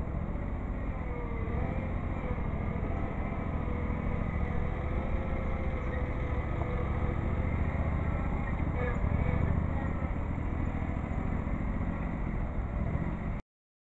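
John Deere 318 garden tractor's two-cylinder Onan engine running steadily as the tractor drives and turns, with a faint wavering whine above it; the sound cuts off abruptly near the end.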